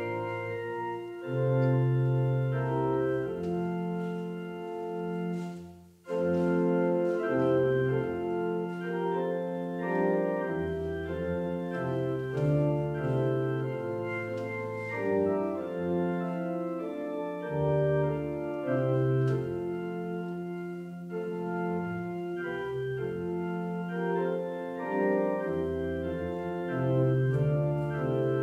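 Organ playing a hymn tune in sustained chords, with a brief break about six seconds in.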